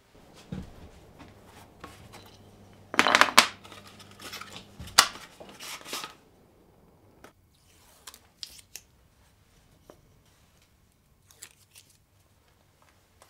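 Hand-work sounds of small wooden strips being handled and set on a hardboard sheet: a cluster of short, sharp rasping sounds about three seconds in and another about five seconds in, then light taps and knocks of wood on the board, over a faint low hum for the first few seconds.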